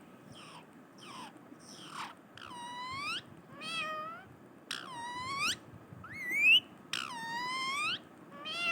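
Parrot mimicking a cat's meow: a run of about eight meow-like calls, roughly one a second, gliding down and back up in pitch. The first few are faint, and the loudest is a rising call a little past the middle.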